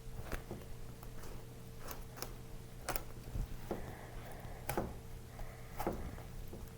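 Knife cutting along a red tilapia to take off a fillet, with sharp clicks about once a second as the blade works along the fish.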